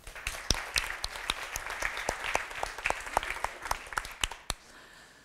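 Audience applauding, starting at once and dying away about four and a half seconds in.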